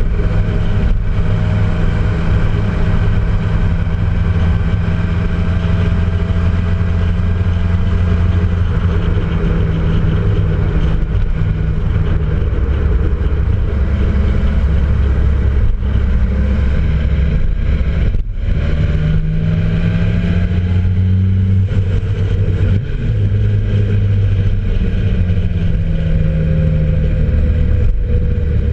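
Motorcycle engine running at steady road speed under wind and tyre noise. It drops briefly about 18 seconds in and picks up again at a higher pitch.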